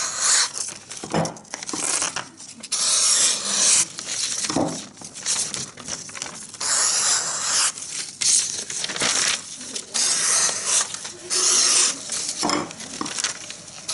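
Knife blades slicing through paper in a series of swishing, tearing strokes with short pauses between them, as a test of edge sharpness.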